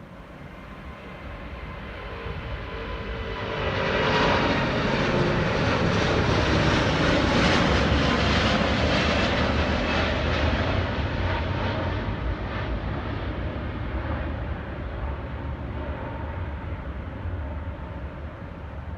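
Boeing 787 jet airliner taking off: engine rush builds, is loudest from about four seconds in, and then slowly fades as it climbs away, with a few tones falling in pitch as it passes.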